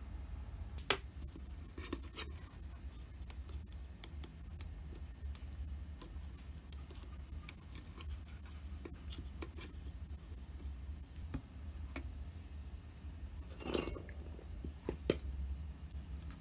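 Handling noise from a circuit board being turned over in the hands: scattered small clicks and taps, with a slightly longer scrape near the end, over a steady low hum.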